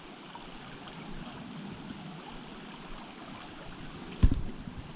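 Small creek running steadily over rocks. A single dull thump about four seconds in.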